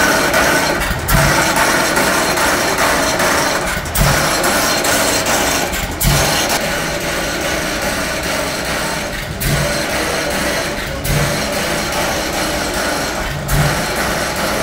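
Old Economy hit-and-miss stationary engine firing with a single heavy thump every two to three seconds, six times, coasting on its flywheels between firings. Under it, the overhead line shaft, pulleys and flat belts that it drives run with a steady noise.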